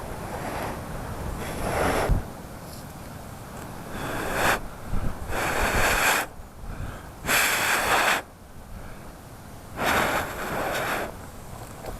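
A person blowing hard into smouldering tinder to bring it to flame: a series of forceful breaths, about one every second or two, over wind hiss.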